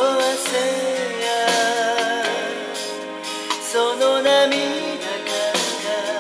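A song: a singing voice holds a wavering melody over instrumental accompaniment.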